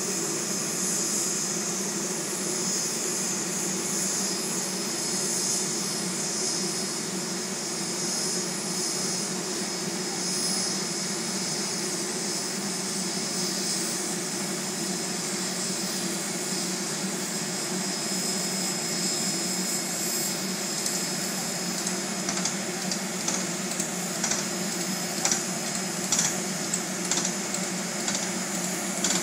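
Steam locomotive and passenger coach moving slowly past: a steady hiss of steam over a low rumble, with scattered sharp clicks in the last several seconds.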